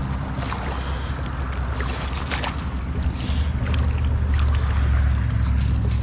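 River water rushing and splashing close by, over a low rumble of wind on the microphone, with small sharp splashes now and then.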